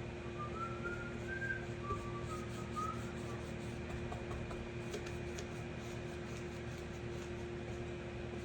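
A person whistling a few short, gliding notes of a tune, stopping about three seconds in, over a steady machine hum.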